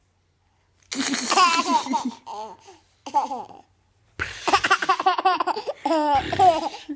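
Baby laughing in bouts of quick giggling pulses while being tickled. It starts after about a second of quiet, with a short bout in the middle and a longer one from about four seconds in.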